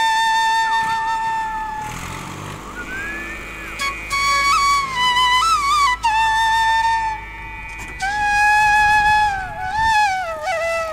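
Background music: a solo flute playing long held notes with sliding, ornamented bends between phrases.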